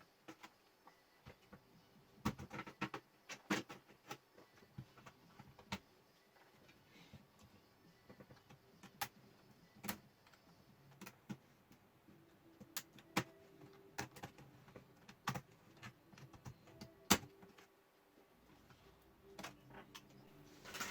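Scattered clicks and taps of a plastic laptop casing and its parts being handled and worked on during disassembly, at irregular intervals.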